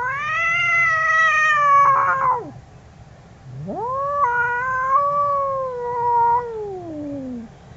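Angry cat yowling: two long drawn-out wails, the first fading out about two and a half seconds in, the second rising, holding, then sliding down in pitch near the end.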